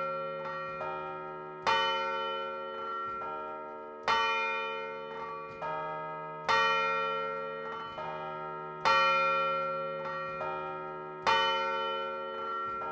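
Large church bell ringing in its belfry: a strong stroke about every two and a half seconds, with lighter strokes in between, each one ringing on and slowly dying away.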